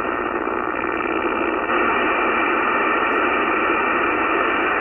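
CB radio receiver on the 11-meter band hissing with static between transmissions, the sound cut off sharply above speech range. The hiss steps up slightly about two seconds in.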